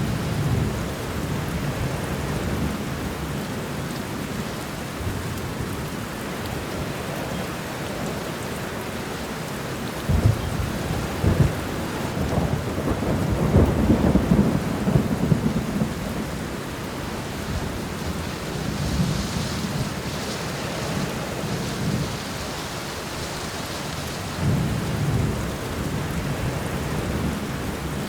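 Thunderstorm: steady rain with rolling thunder. The loudest thunder comes from about ten to sixteen seconds in, with sharp peaks, and softer rumbles come at the start and near the end.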